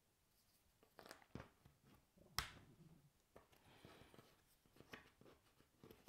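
Faint, light clicks of cardboard jigsaw puzzle pieces being picked up and set down on a wooden table, the sharpest about two and a half seconds in.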